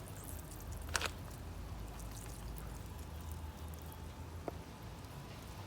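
Chemical coil cleaner dripping and trickling off a car's AC evaporator core, over a low steady hum. A sharp knock about a second in and a lighter click later on.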